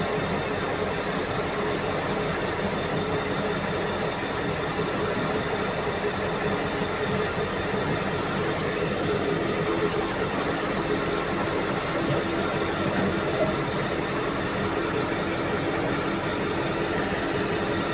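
Heavy diesel mining machinery running steadily: the engine drone of a large hydraulic mining excavator and haul truck at work, without sharp impacts.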